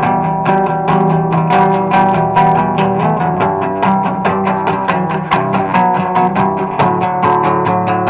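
Acoustic guitar played through a small portable amplifier, picked notes in a steady rhythm with a low bass line underneath.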